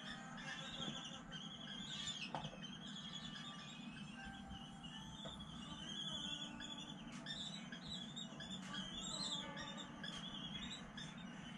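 Common kestrel chicks giving thin, high, wavering begging calls over and over while the adult feeds them at the nest, with a low steady hum underneath.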